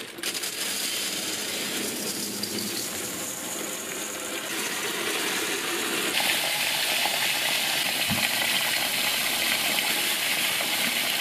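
Dry glutinous rice pouring from a bag into a stainless steel basin: a steady hissing rattle of grains on metal. About halfway through it grows brighter as water runs in over the rice.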